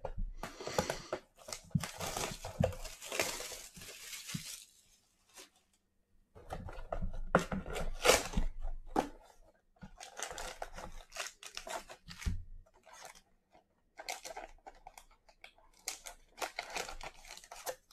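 A trading-card mega box being torn open and its wrapped packs handled: tearing and crinkling of wrapping and cardboard in four bouts separated by short pauses.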